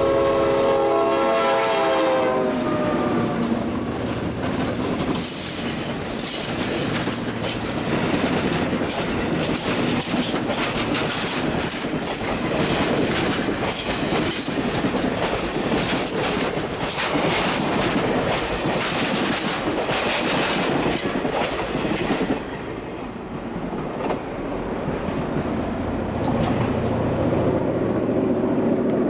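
Diesel locomotive horn sounding for about the first two seconds, then a Norfolk Southern passenger train running close by: locomotives and a string of passenger cars, with wheels clicking steadily over the rail joints. The sound drops suddenly about 22 seconds in as the last car passes.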